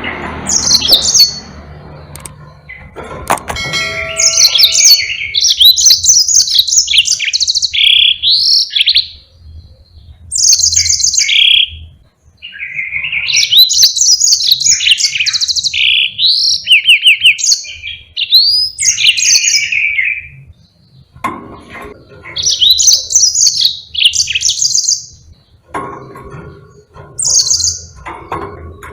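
Yellow-fronted canary (Mozambique finch) singing long, fast phrases of high trills and warbled rolls, with short pauses between phrases. A sharp click about three seconds in. The song breaks off near the end, leaving softer sounds.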